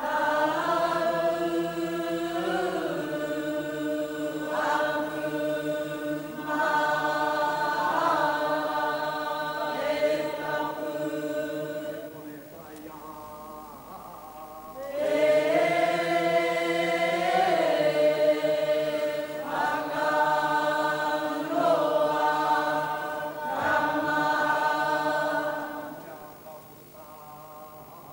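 A group of Māori women chanting in unison in long, held phrases. The voices drop away about twelve seconds in, come back about three seconds later for a second long phrase, and fade near the end.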